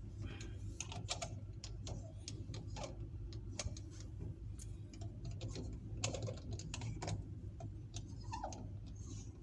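Irregular small metal clicks and taps as parts of a fiber laser cutting head's collimator assembly are handled and worked with tools, over a steady low hum.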